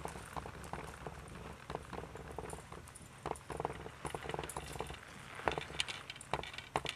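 Hoofbeats of a Quarter Horse/Paint gelding moving on soft arena dirt: muffled, irregular thuds, with a few sharper clicks near the end.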